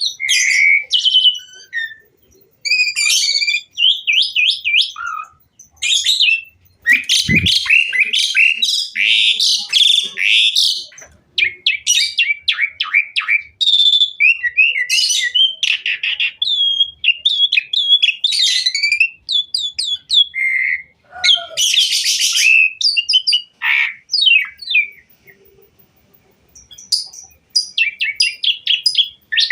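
Black-collared starling (jalak suren) in full song: a loud, varied run of chirps, whistles and rapid trills packed with mimicked phrases, broken by short pauses. A brief low knock comes about seven seconds in.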